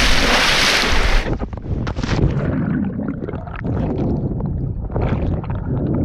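A person plunging into a rock pool: a loud rushing splash for about the first second, then the sound goes muffled, bubbling and gurgling heard underwater.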